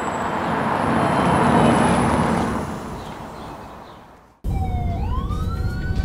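A rushing noise swells up and fades away over the first four seconds. Then a police siren cuts in sharply, its wail rising in pitch over a low rumble.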